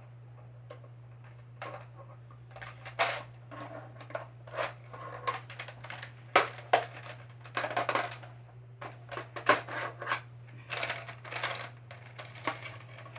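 Irregular clicking, tapping and scraping of a screwdriver worked against the plastic of a toy Nerf blaster to free a stuck foam dart, over a steady low hum.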